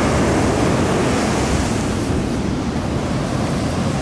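Atlantic ocean surf breaking and washing up a black sand beach, a steady rush of foam.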